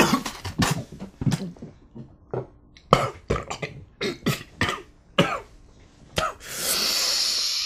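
A man coughing in a run of short, harsh fits after gulping a shot of straight whiskey, with the burn of the liquor setting it off. It ends in a longer breathy rasp.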